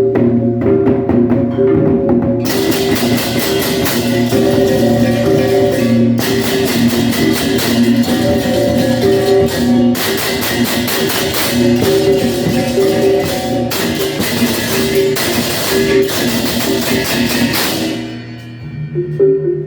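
Balinese baleganjur gamelan playing: gongs ring out a repeating pattern, and about two seconds in crashing ceng-ceng cymbals join in a dense, loud wash with a few short breaks. Near the end the cymbals stop, leaving the gongs.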